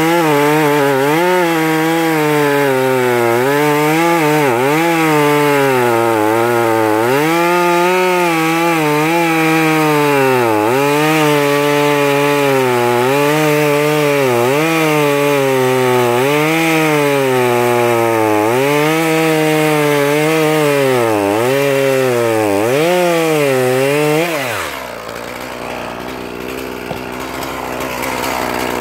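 Echo CS-450 two-stroke chainsaw cutting through an oak log at high revs, its engine pitch dipping and recovering again and again as the chain bites under load. Near the end the throttle is let off and it falls to idle.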